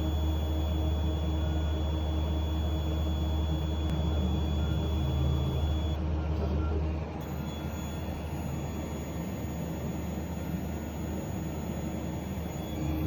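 K40 CO2 laser engraver making a steady low hum with a thin high-pitched whine, the noise its owner is troubleshooting. The whine stops about six seconds in and comes back a second later, and the hum drops in level around seven seconds in, then rises again near the end.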